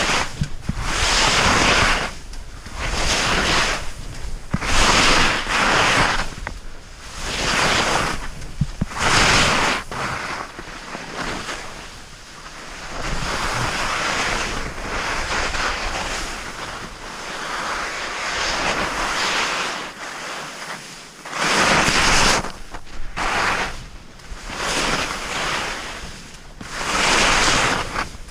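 Edges scraping and hissing through packed snow on a descent over moguls, swelling with each turn every couple of seconds, mixed with wind rushing over the microphone.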